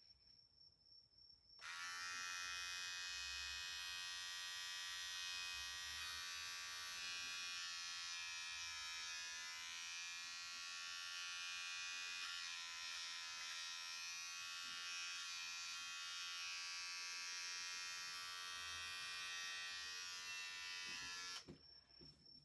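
Cordless electric hair clipper switched on about a second and a half in, buzzing steadily while it trims short hair at the back of the head, then switched off about a second before the end.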